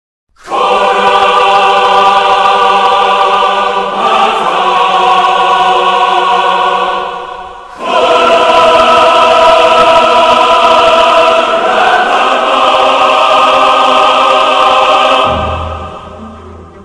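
Choral music: a choir singing long held chords that change every few seconds. It fades out near the end as a low held note comes in.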